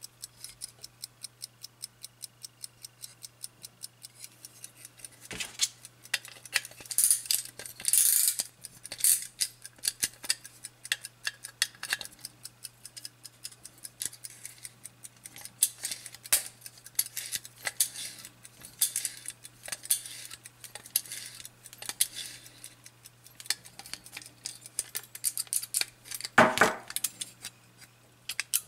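Platform escapement of a Soviet navy marine ship wall clock movement ticking fast and evenly, about five ticks a second. From about five seconds in, metal clinks and rubs from handling and a tool on the movement mix with the ticking, with one louder knock near the end.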